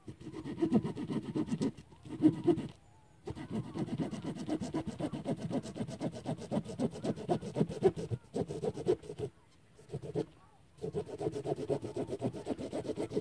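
A hand tool rasping through a dry branch of firewood in quick back-and-forth strokes, in long runs broken by short pauses.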